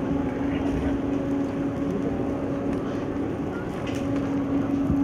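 A steady mechanical hum holding one low pitch over a constant noisy background.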